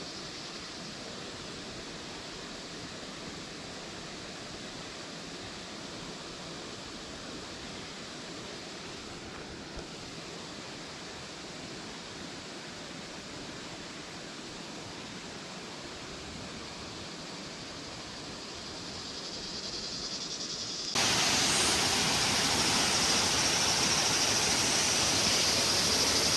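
Faint steady outdoor hiss, then near the end an abrupt jump to the loud, steady rush of water pouring down a concrete dam wall onto rocks.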